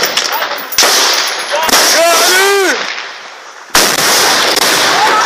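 Loud close gunfire: a sharp report about a second in and another near four seconds, each followed by dense, continuing firing noise. A man shouts between them.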